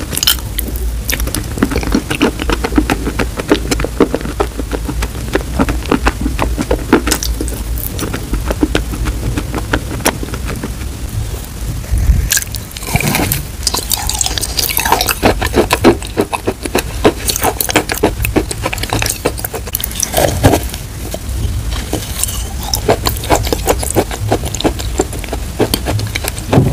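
Close-miked eating of wet chalk paste and chalk crumbs: wet, crunchy chewing full of irregular sharp crackling clicks, with a spoon scraping the glass bowl.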